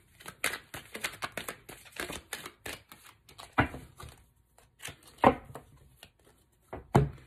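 A deck of cards being shuffled by hand: a quick run of flicking clicks for about three seconds, then three louder taps spread over the rest, as cards come down on the cloth-covered table.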